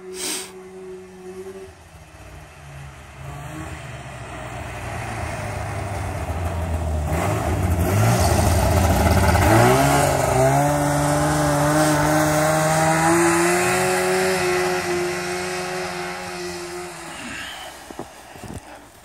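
1986 Trail Manta snowmobile running on its original engine, driving through deep snow: the engine grows louder as the sled comes closer, its pitch climbs sharply about halfway through as it is throttled up, holds steady, then fades away near the end.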